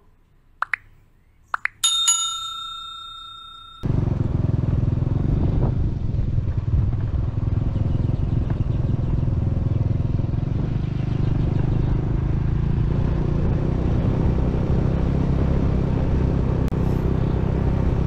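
Two short clicks and then a bell-like notification ding that rings out and fades, from a like-and-subscribe animation. About four seconds in it cuts abruptly to the steady low rumble and wind noise of a vehicle riding along a gravel track.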